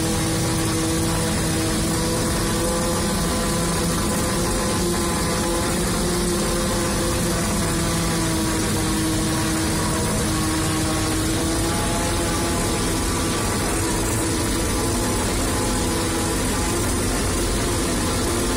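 Fortschritt E-281 self-propelled forage harvester running steadily, heard from inside its cab: an even engine rumble with a steady pitched hum from the machine.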